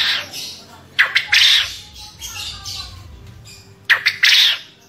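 Male contest quail crowing its 'ceketer' call: each call is a couple of sharp clicking notes followed by a harsh rasping burst, given three times, about a second and then about three seconds apart.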